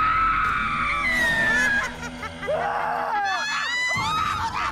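A woman screaming in terror: one long high scream that falls slowly in pitch for about two seconds, then shorter wailing cries, over a low steady background tone.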